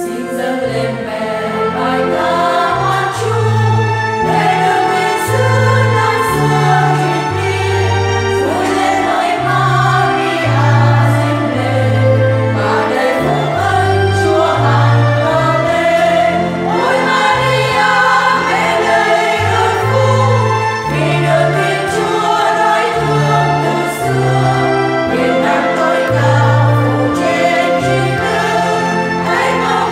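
Women's choir singing a Vietnamese hymn to Mary in parts, over accompaniment with a steady line of held low notes.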